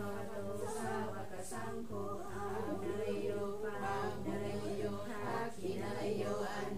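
A woman chanting a Thai Buddhist offering prayer in a sung, melodic voice, with a steady low drone underneath.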